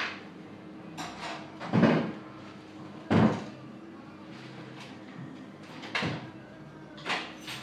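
Dull thumps and knocks on a wooden cutting board as a bacon-wrapped rabbit roll is rolled and pressed by hand, about seven in all, the loudest two about two and three seconds in, over a steady low hum.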